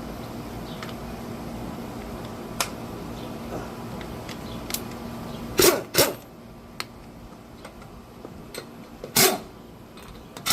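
Wrench and 21 mm socket on a car's wheel lug nuts as they are loosened: a few sharp clicks, then loud metallic knocks, a pair in quick succession about halfway through and another near the end.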